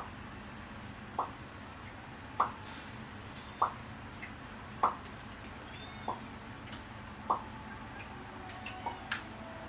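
Short high peeps from an animal, repeated evenly about once every second and a quarter.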